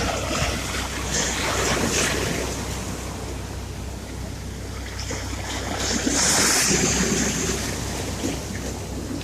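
Sea surf washing ashore, the waves swelling twice, about a second in and again around six seconds in, over a steady low hum.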